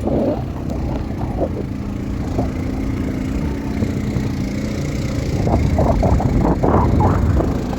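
ATV engine running steadily, with a cluster of irregular knocks and rattles about five to seven seconds in.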